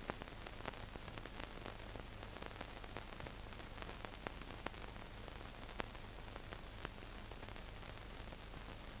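Faint steady hiss of an old film soundtrack, with scattered light clicks and crackles and a low hum underneath. No speech or music.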